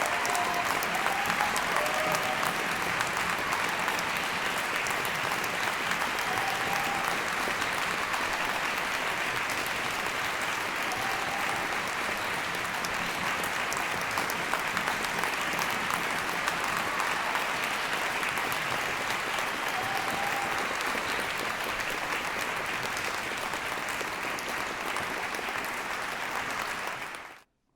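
Crowd applauding steadily as a dense, even clatter of many hands, with a few shouts and whoops of cheering at the start and now and then. It fades out quickly near the end.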